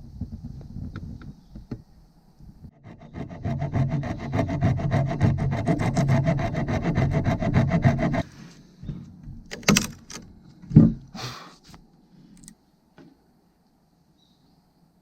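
Wood being sawn by hand: fast, even rasping strokes for about five seconds, stopping abruptly, followed by a few sharp knocks.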